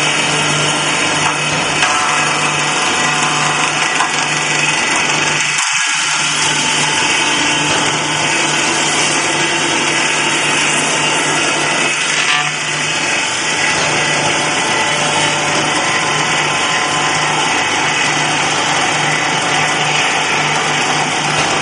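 ChS3U log-notch cutting machine running steadily, its motor and cutter giving a loud, even mechanical whir with a brief dip about twelve seconds in.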